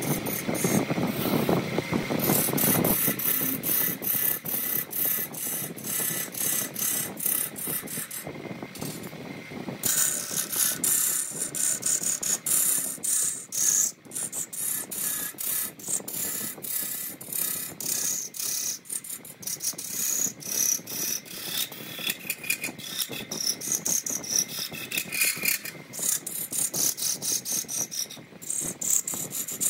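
Wood lathe spinning a redwood workpiece while a hand-held turning tool cuts into it: a rapid rattling scrape with a hiss of flying shavings, briefly letting up about halfway through.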